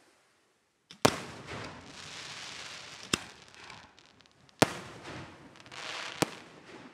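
Aerial firework shells bursting: four sharp bangs, the first about a second in, each followed by a hissing spray of sparks.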